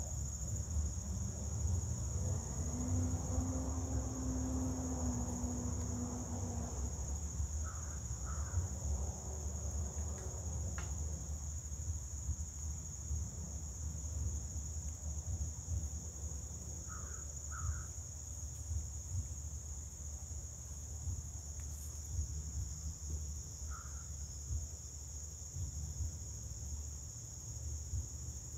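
A steady, high-pitched chorus of insects such as crickets, with a low rumble underneath. A bird gives short calls a few times, mostly in pairs.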